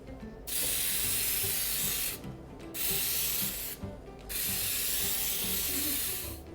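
Aerosol can of cooking spray giving three long hisses, each one to two seconds, that start and stop sharply.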